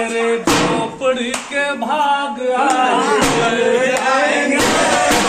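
A man's voice singing loudly, with long held notes that bend up and down. Drumming comes back in near the end.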